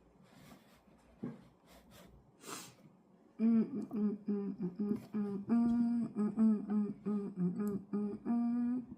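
A person humming a tune in short, steady notes, starting about three and a half seconds in, after a few faint clicks and rustles.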